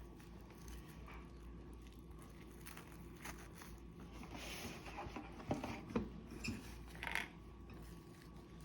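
Quiet handling while zongzi are being wrapped: faint rustles and light clicks, with a few louder ones about five to seven seconds in, over a low steady hum.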